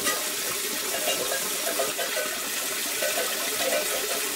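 A calf drinking water from a hand-held plastic bucket, with steady slurping and sloshing.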